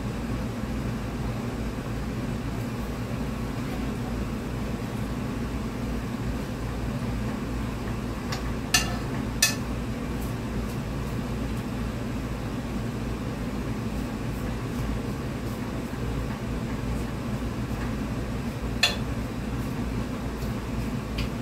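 Steady low mechanical hum in a kitchen, with three sharp clicks from the cooking pot as cabbage leaves are pressed down in it: two close together about halfway through and one near the end.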